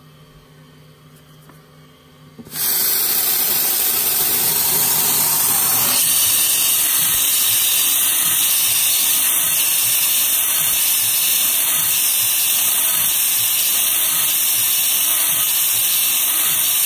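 Hardinge CNC lathe starting a thread-cutting pass: its coolant nozzles come on suddenly about two and a half seconds in with a loud, steady spray hiss over the spinning part, which drowns out the faint machine hum before it.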